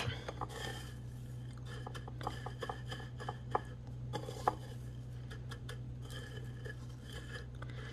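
Dry panko breadcrumbs rustling and crackling as fingers press and sprinkle them onto a soft patty, with many small scattered ticks. A steady low hum runs underneath.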